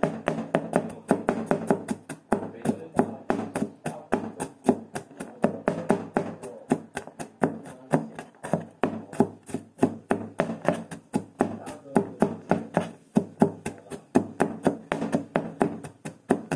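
Knife chopping rapidly on a cutting board, about four to five sharp strokes a second, over a steady low hum.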